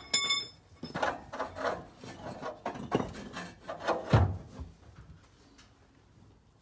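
A short metallic ring, then irregular knocks, clunks and scraping of metal parts being worked against each other as an engine is guided onto its mounts, dying away a little over four seconds in.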